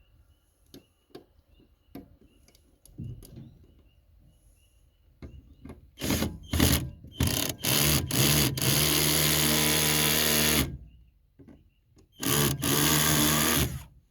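Power drill motor whirring in bursts: several short trigger pulls, then a steady run of about two seconds, and after a pause another run of about a second and a half. Faint clicks come before it.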